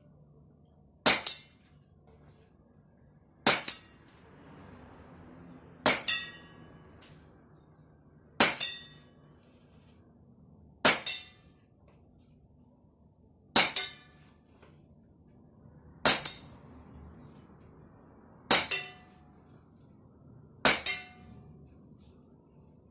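CO2 air pistol shots fired at a steady pace, about one every two and a half seconds, nine in all. Each is a sharp pop followed at once by a second crack and a brief metallic ring.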